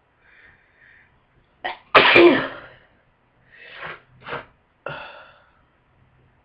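A person with a heavy head cold sneezing once, loudly, about two seconds in, just after a short sharp intake. A few quieter, shorter breathy sounds follow.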